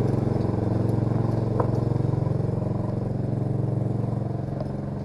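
Engine of an engine-drive welder running steadily.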